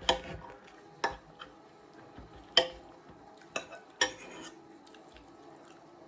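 Cutlery clinking against a dinner plate during a meal: five sharp clinks with short ringing over about four seconds.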